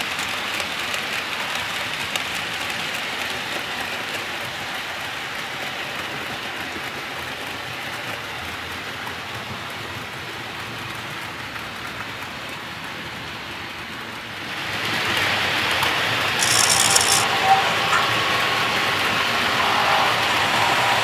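OO gauge model trains running on the layout's track, a steady rattling hiss of wheels on rails. It grows louder about two-thirds of the way through, with a brief high hiss soon after.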